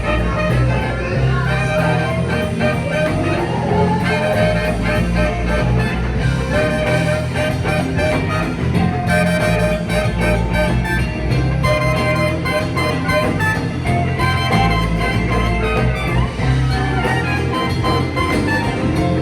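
Band music playing with a steady beat over a sustained bass line.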